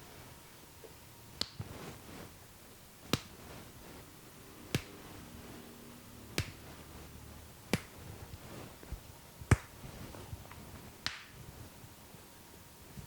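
Seven sharp snapping cracks made by a masseur's hands during an Indian head massage, about one every one and a half seconds, the loudest a little past halfway.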